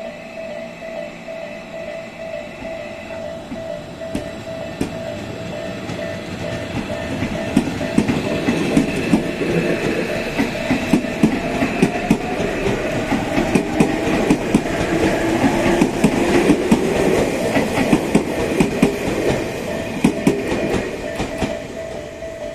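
Tobu 'Ryomo' limited express electric train running past out of service, its wheels clicking over the rail joints. It grows louder to a peak in the second half. A steady, pulsing tone runs underneath throughout.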